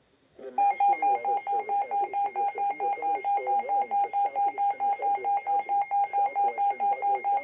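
NOAA weather alert radio sounding its warning alarm: a loud, rapid beeping tone at about five beeps a second, starting about half a second in. It is the alert that a severe thunderstorm warning has been issued.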